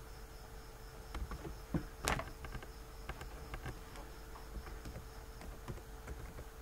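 Quiet background with faint insect chirping, a high, evenly pulsing sound, over a steady low hum, with a few small clicks, one louder about two seconds in.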